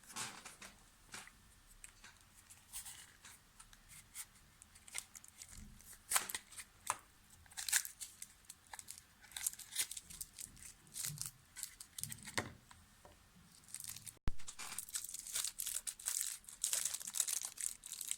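Irregular crinkling and tearing of handled material, with scattered crackles that grow denser over the last few seconds.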